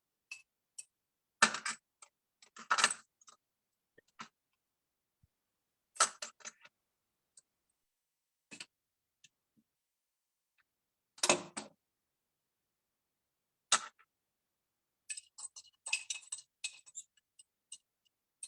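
Metal fork clinking and tapping against a glass jar while chia seeds are stirred into milk: scattered sharp clinks, a handful of louder ones spread through the stretch and a quick run of small ticks near the end.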